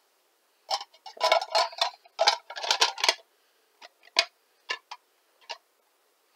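Hands handling small cardboard and plastic packaging: a quick flurry of rustling and clicks, then a few separate clicks.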